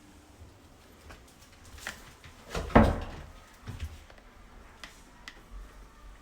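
A door or cabinet being shut indoors, with one loud knock about three seconds in and lighter knocks and clicks around it.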